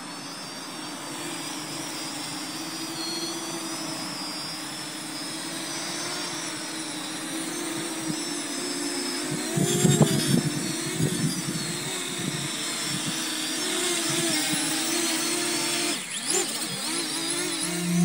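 Small quadcopter drone's propellers buzzing at a hover, the pitch wavering as the throttle changes. It gets louder about ten seconds in as the drone comes close, with a gusty rush of prop wash on the microphone.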